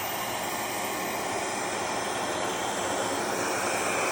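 RevAir reverse-air hair dryer running on setting 3, a steady rush of air as its wand sucks in and dries a section of hair.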